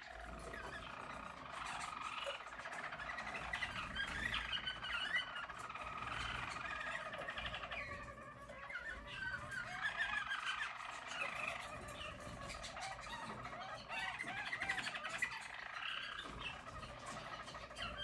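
Harz Roller (German Roller) canaries singing a continuous rolling song of fast trills, the pitch wavering up and down.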